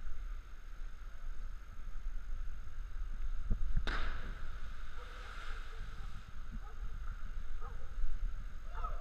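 Wind rumbling on an action camera's microphone, with a sharp knock about four seconds in followed by a couple of seconds of rustling hiss.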